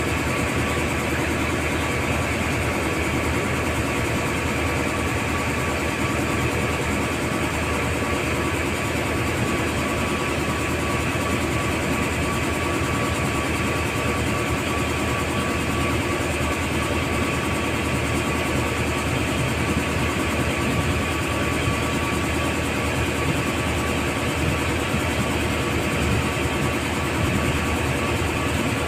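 Marine engine running steadily: an even drone with a constant whine over it.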